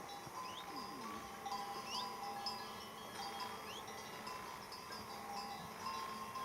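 Bells on the collars of grazing horses ringing irregularly, several tones of different pitch overlapping as the animals move.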